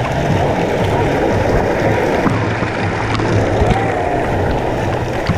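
Churning river water sloshing and splashing right against a camera at the waterline, a loud, continuous rush.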